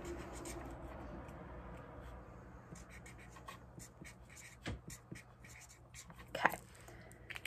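Quiet writing on paper: faint scratching with a couple of light taps.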